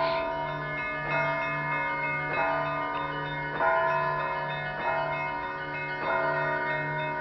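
Russian Orthodox church bells ringing together before the evening service: several bells sound at once, with a fresh stroke about every second and a quarter over the lingering ring of the others and a low bell humming beneath.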